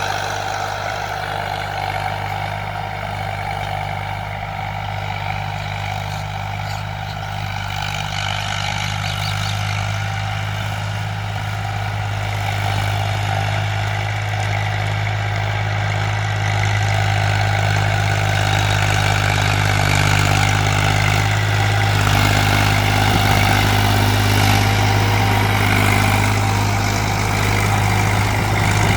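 Tractor's diesel engine running steadily, a deep continuous drone that grows somewhat louder about halfway through.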